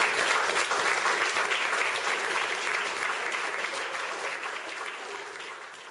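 Audience applauding, a dense patter of many hands clapping that fades away steadily toward the end.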